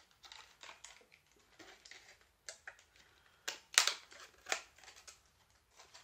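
Small hard plastic items being handled: a run of light clicks and rustles, with a few sharper clicks about three and a half to four and a half seconds in.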